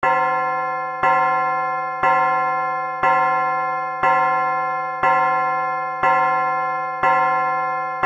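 A clock's bell chime striking the hour, about one stroke a second, each stroke ringing the same deep bell tone and fading until the next.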